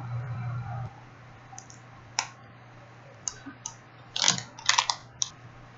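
Kit Kat wrapper being opened and crinkled: scattered sharp crackles that come thickest about four seconds in. A low steady hum runs through the first second.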